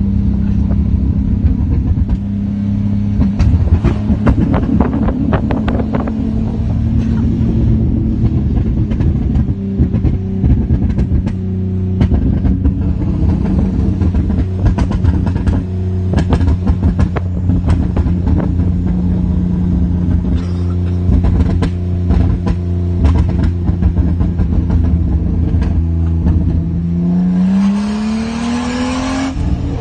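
Holden VY Commodore's 3.8-litre V6 running at a steady engine note, with its exhaust crackling and popping throughout in scattered sharp cracks. Near the end the revs rise.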